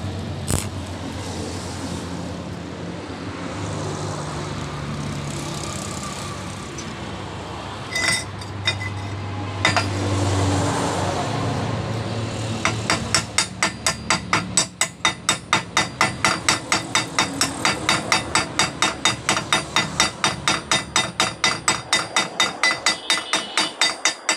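Stick-welding arc burning steadily on a steel pipe for about the first twelve seconds. Then rapid metal-on-metal tapping, about three or four strikes a second, as a steel chipping hammer knocks the slag off the fresh weld.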